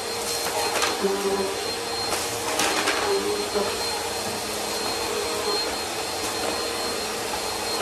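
Bissell PowerForce upright vacuum cleaner running steadily with a constant motor whine, with a few short crackling rattles of crushed food being sucked up through it.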